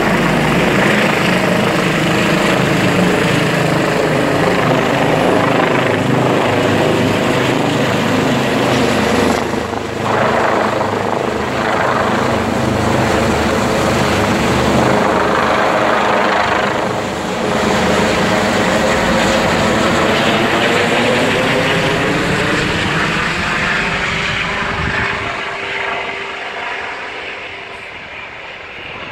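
Airbus EC145 T2 twin-turbine helicopter flying low overhead: the steady rotor beat mixes with turbine and ducted tail-rotor noise, and the pitch bends as it passes directly above. It then fades gradually over the last several seconds as it flies away.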